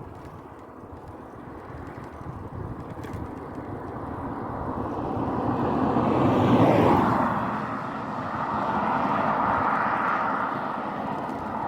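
A motor vehicle passing close by: it grows louder over several seconds, then its pitch drops as it goes past, about six to seven seconds in. A steady rush of road noise follows.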